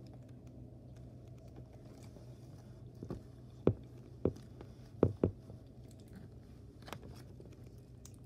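Clear slime being squeezed and pressed against a tabletop by hand, giving a handful of short pops and smacks partway through, over a low steady hum.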